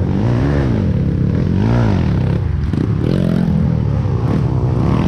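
Dirt bike engine heard close up from the rider's seat, revving up and easing off over and over, about once a second, as the throttle is worked on the trail.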